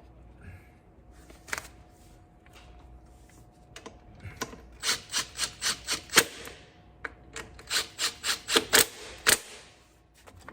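Hand tools clicking while brake parts are refitted: a few scattered sharp clicks, then two quick runs of six or seven clicks, about five a second, with some rubbing.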